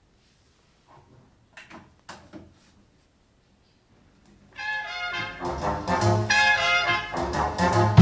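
A few faint clicks, then brass music played over hi-fi loudspeakers begins about four and a half seconds in, with trumpet and trombone-like voices, and grows louder.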